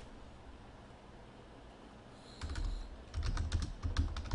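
Typing on a computer keyboard: quiet at first, then a quick run of key clicks from about two and a half seconds in.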